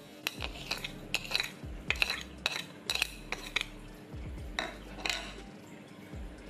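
A metal spoon clinks against a ceramic bowl as sugar is added and chopped green onion and ginger are stirred. There is a quick run of light, ringing clinks that stops about five seconds in.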